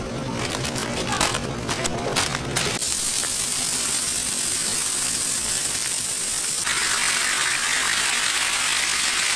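Clicks and taps, then from about three seconds in a loud steady hiss that grows fuller from about seven seconds in, as bacon strips sizzle on a hot griddle.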